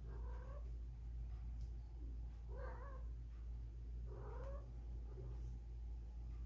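Female cat in heat calling: three short, pitched cries about half a second long and a couple of seconds apart, the heat cries of a queen that the owners believe is in heat even though she was spayed two years ago.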